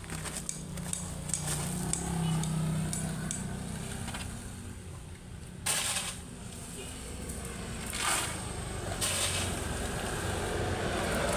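Steel shovel scraping into a pile of crushed gravel and pitching the stones, in four short scoops in the second half, over a low steady hum.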